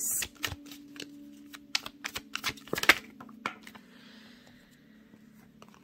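A tarot deck being shuffled by hand: a quick run of small clicks and slaps of card against card, which thins out after about three and a half seconds.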